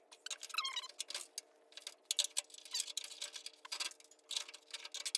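A metal hand tool scraping and picking along the steel edge channel of a VW Type 2 bus door, digging out old residue. It makes irregular clicks and scratches with a few short squeaks.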